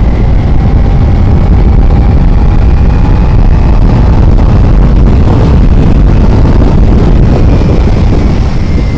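Heavy wind buffeting on the microphone of a motorcycle at highway speed, with the Kawasaki Ninja 300's parallel-twin engine running underneath as a faint steady whine.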